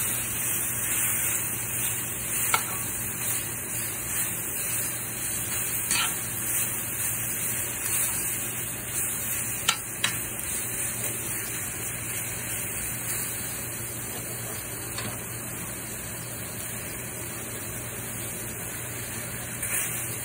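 Baby bok choy sizzling in a hot enamelled cast-iron skillet while it is tossed with metal tongs, a steady frying hiss. A few sharp clicks of the tongs against the pan stand out, two of them close together about halfway through.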